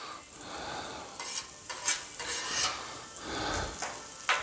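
Vegetables sizzling on a Blackstone flat-top griddle, stirred with a spatula that makes several short scraping sounds across the steel, and a sharp click near the end.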